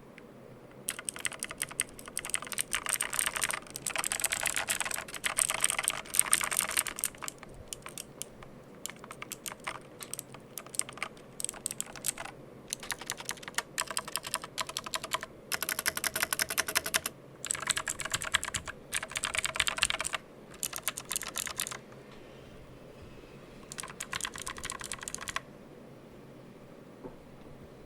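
Mechanical keyboard being typed on in fast bursts of clicking keystrokes, with short pauses between runs. The typing stops about three-quarters of the way through, then comes back for one brief burst near the end.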